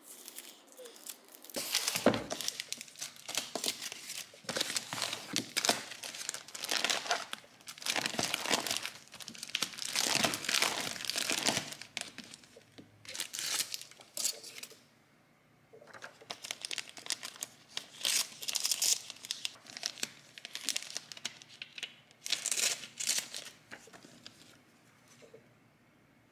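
Thin plastic packaging crinkling in irregular bursts as small clear zip bags of nail charms and the plastic sleeves of a file binder are handled, going quiet near the end.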